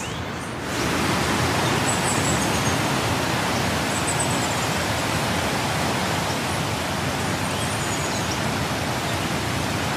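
Rushing river water: a steady, even hiss that grows louder about a second in and then holds.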